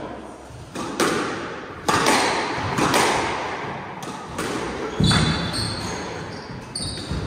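Squash ball being struck and rebounding: a series of sharp knocks of ball on racket, walls and floor, ringing in the enclosed court. From about five seconds in, short high squeaks of court shoes on the wooden floor.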